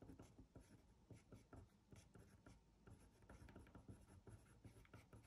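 Pen writing on paper: faint, quick scratching strokes of handwritten lettering.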